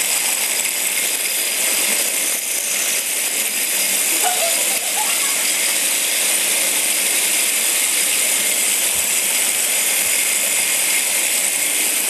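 Many Hexbug Bobble Bots, small vibration-motor toy robots, buzzing and rattling steadily together as they scoot across a hard floor.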